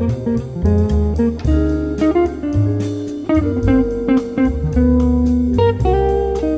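Background music: guitar playing plucked notes over a bass line.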